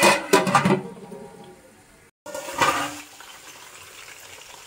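A metal lid clatters onto an aluminium cooking pot and rings briefly. A second, shorter clatter comes about two and a half seconds in, with a low steady sizzle from the frying onions and tomatoes between.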